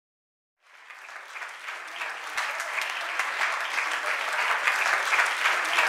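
Crowd applause fading in about half a second in and growing steadily louder, a dense patter of many hands clapping.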